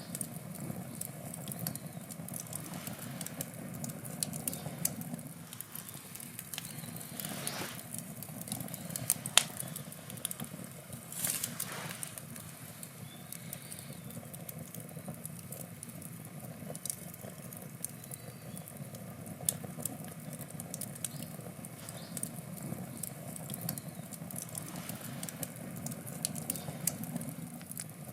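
Wood campfire burning, with frequent small crackles and pops, a louder pop about nine seconds in and a brief hiss a little later.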